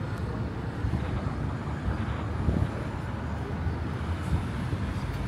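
Outdoor street ambience: a steady low rumble with no clear tone or rhythm.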